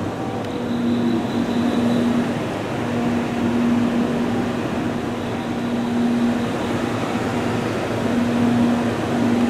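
Steady mechanical hum and rush of a railway station platform, with a low hum that fades in and out every second or two.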